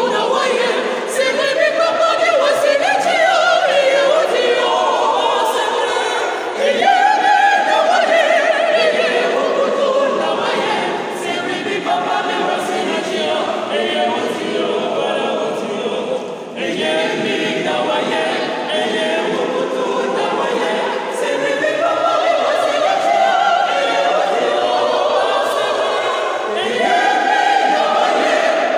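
Mixed choir of men's and women's voices singing together, with a brief break between phrases about halfway through.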